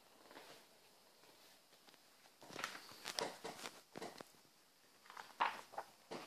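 Glossy magazine pages rustling and flapping as they are handled and turned, in two short flurries: one a few seconds in, another near the end.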